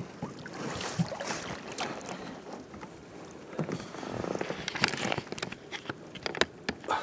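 Wet rope being pulled in from the water over an inflatable boat's tube: rustling and splashing, with a few sharp knocks.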